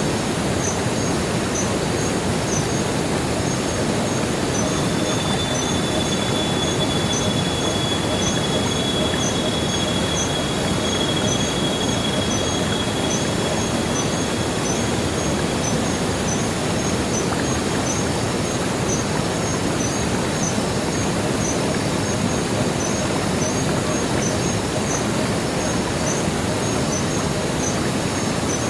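Waterfall cascading in a steady, even rush. Faint high chirps repeat about twice a second throughout, and a thin high whine is held from about four seconds in until about halfway through.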